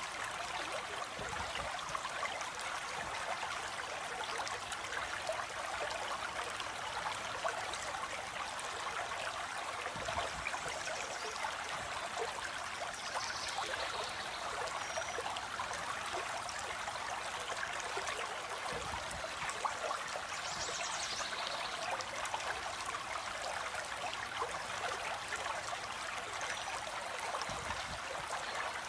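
A stream of water flowing steadily, with a few faint high bird calls over it in the middle.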